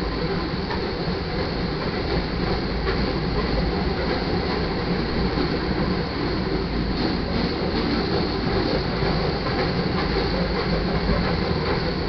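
Loaded iron ore cars of a freight train rolling past with a steady rumble and rattle of wheels on the rails.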